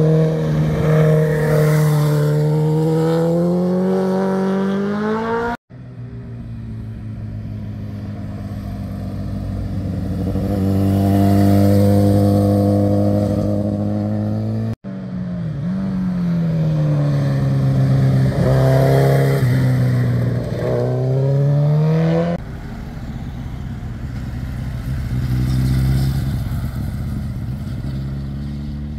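Sport motorcycles ridden one after another through a hairpin bend, each engine note sliding down and rising again in pitch as the bike slows into the curve and pulls out of it. The sound cuts abruptly from one bike to the next three times.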